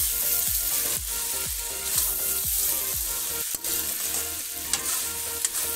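Potato and pointed gourd (parwal) sabji sizzling in oil in a steel kadhai while a metal spatula stirs it, with strokes about twice a second over the first few seconds. This is the bhuna stage, with the oil already separating from the masala.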